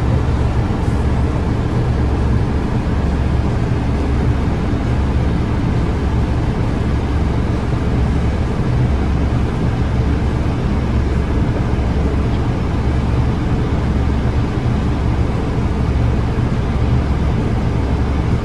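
Strong winter storm wind buffeting the microphone: a steady, loud low rumble that keeps gusting and flickering, over an even rushing hiss.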